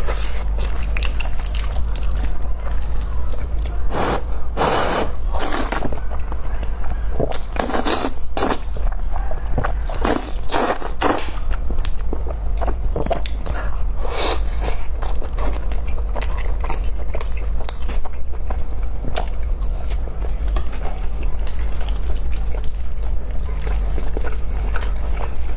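Close-miked eating: wet chewing and mouth noises with many small clicks, and louder noisy bursts every few seconds in the first half, over a steady low hum.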